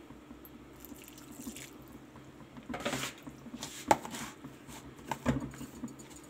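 Sliced onions, coriander and flour being mixed with a little water in a plastic bowl for pakora batter: a few short wet stirring sounds, the sharpest a click about four seconds in.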